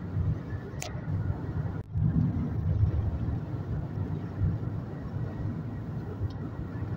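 Steady road and engine rumble heard inside a car cabin while driving on a highway. There is a brief click about a second in, and the noise cuts out for an instant just before two seconds, then resumes.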